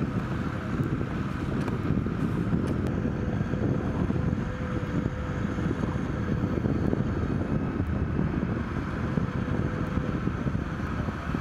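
Cat hydraulic excavator's diesel engine running steadily as it digs silt from a harbour bed, with a faint steady whine, mixed with wind on the microphone.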